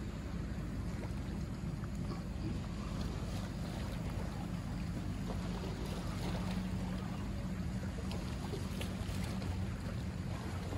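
Steady low drone of a boat engine running out on the water, mixed with wind noise on the microphone and water sounds.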